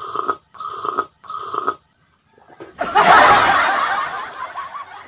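A man slurping coffee from a glass in three short sips, followed about a second later by a loud, rough breath out after drinking.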